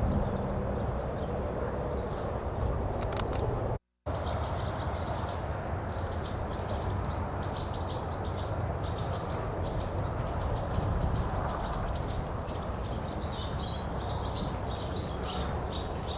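Small birds chirping in quick, repeated short notes over a steady low background noise. The sound cuts out completely for a moment about four seconds in, and the chirping is busiest after that.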